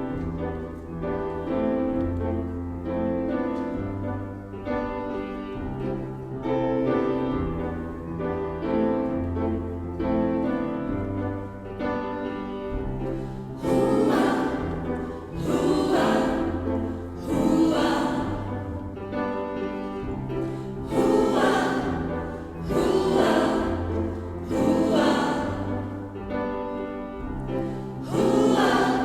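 Gospel choir singing with keyboard accompaniment. About the first half is keyboard chords over a bass line; the choir comes in about halfway through.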